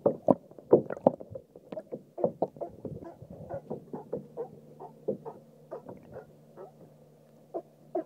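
Water splashing and lapping around a kayak: a rapid, irregular run of short splashes, loudest in the first second and a half, then lighter. A low steady hum sits underneath from about three seconds in.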